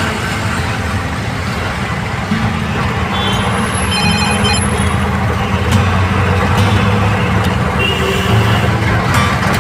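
Road traffic with a vehicle engine's steady low drone, with a brief high-pitched beeping tone about three to five seconds in and another short one near eight seconds.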